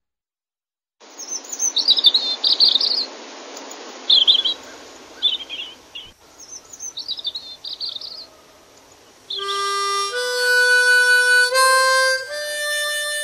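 Songbirds chirping in short phrases over a steady outdoor hiss. About nine seconds in, a wind instrument starts a slow tune of long held notes.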